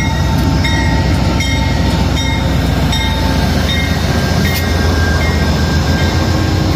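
Amtrak GE P42DC diesel locomotive running under power as it passes close by, with a steady low engine drone. Its bell rings over the drone, one ding about every three-quarters of a second.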